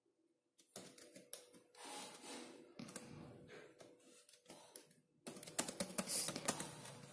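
Typing on a computer keyboard: a run of key clicks that starts under a second in, pauses briefly near five seconds, then comes back louder and quicker.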